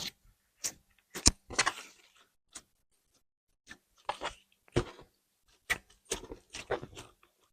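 Slime jars being handled and set down on a wooden surface: irregular sharp taps and clicks, some with a short crackle after them.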